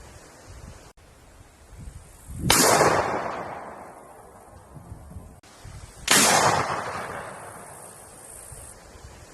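Two single gunshots about three and a half seconds apart, each a sharp crack followed by a long echo dying away.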